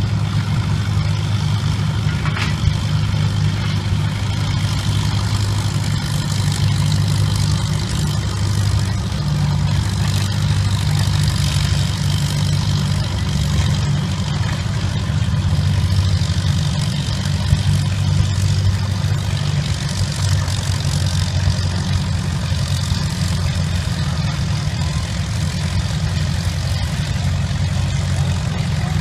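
Antique Farmall tractor engine running steadily under load as it pulls a weight-transfer sled down the track.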